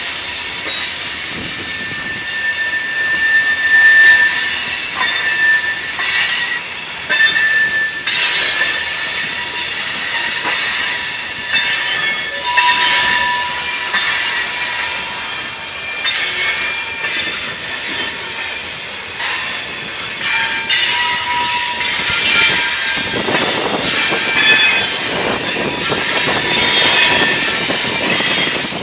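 Covered grain hopper cars rolling through a curve, their wheels squealing in several high, steady tones that come and go over the rumble and clatter of wheels on rail. The rumble grows fuller and louder in the last several seconds.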